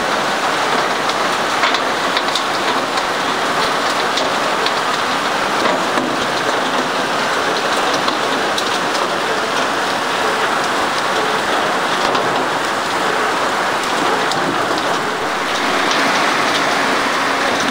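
Bucket-chain gold dredge at work: a steady rush of wash water and gravel pouring through the steel hopper and screens, with scattered sharp clicks.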